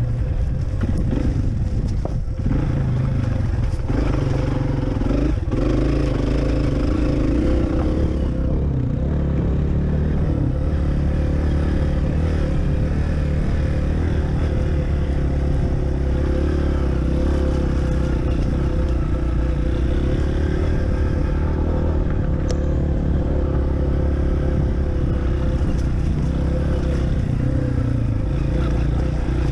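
Honda CRF230F dirt bike's single-cylinder four-stroke engine running steadily while riding singletrack, the pitch rising and falling with the throttle in the first several seconds. A few sharp knocks from the bike over rough ground.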